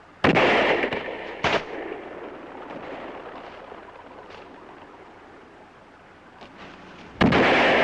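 Three gunshots: two about a second apart, then a third near the end. The first and last trail off in a long echo.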